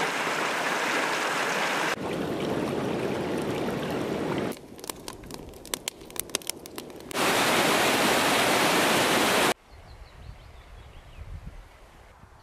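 Shallow river rushing over rocks, then a wood campfire crackling with sharp pops about halfway through. A loud steady rush follows and cuts off suddenly, leaving quiet open-air ambience.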